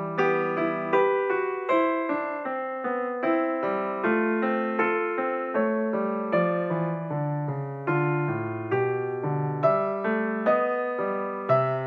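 Background piano music: a gentle melody of evenly paced notes over low chords, each note fading after it is struck.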